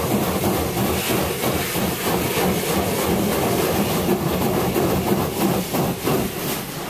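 Laserwash undercarriage and side-wash jets spraying water against the car, heard from inside the cabin as a steady hiss that eases off near the end.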